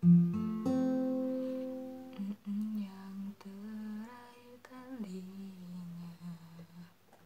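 Acoustic guitar chord strummed, struck again just under a second later, and left ringing until it fades about two seconds in. A woman's voice then carries a soft melody over the rest.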